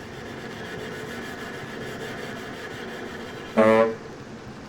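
Contemporary chamber music for viola and baritone saxophone: a soft, breathy, hissing texture, then near the end a short, loud, low honk on the baritone saxophone.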